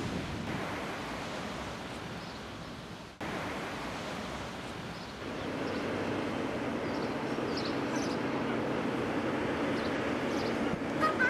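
Outdoor wind and surf noise, then after a cut a steady low hum of harbour ambience with faint short high calls.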